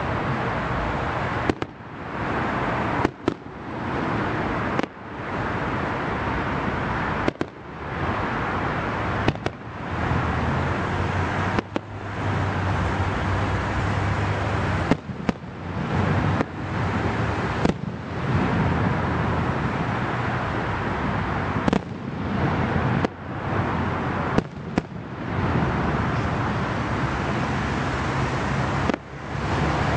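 Fireworks display: a continuous barrage of booms and crackling, with about a dozen sharp, loud bangs spread through it. The sound briefly drops away and swells back after several of the bangs.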